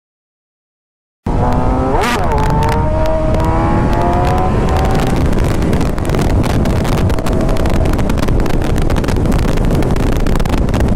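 Complete silence for about a second, then a Suzuki GSX-R motorcycle's inline-four engine accelerating, its pitch climbing for a few seconds before settling into a steady cruise. Heavy wind rush on the helmet-mounted microphone runs under it.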